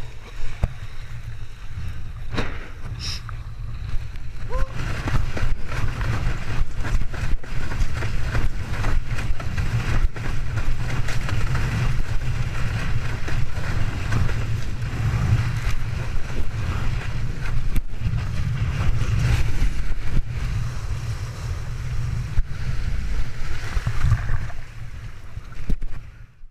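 A windsurfer planing fast over chop. Wind buffets the microphone of the body-mounted action camera in a loud, steady rumble, over rushing water, hissing spray and the board knocking on the chop. The sound cuts off suddenly near the end.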